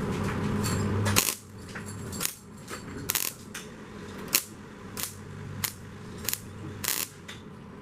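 A steady hum cuts off about a second in. It is followed by about ten sharp metallic clinks at irregular intervals: steel body-panel pieces and tools knocking together during tack-welding work on a Model A side skirt.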